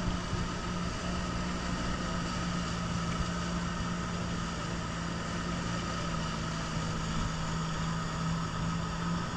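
A boat engine running steadily under way: a constant low drone over a steady rushing noise.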